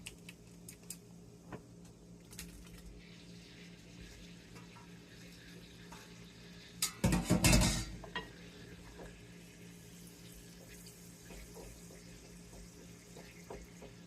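Metal utensils clicking and scraping in a frying pan of shrimp and garlic, over a steady low hum. About halfway through comes a loud clatter lasting about a second.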